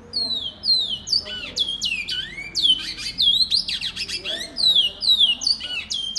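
Male great-billed seed-finch (bicudo) singing a continuous song of quick, clear whistled notes, many sliding steeply downward, sung with the drive that breeders call 'fibra'.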